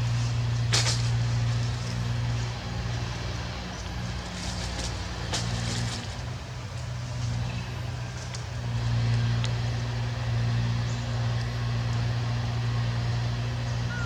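A steady low motor hum, like an engine running, weakening for a few seconds mid-way and then rising again, with two sharp clicks, one about a second in and one near the middle.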